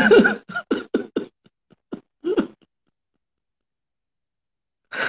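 A man laughing: a loud burst, then a string of short laughs that taper off over about two and a half seconds, with one more brief burst near the end.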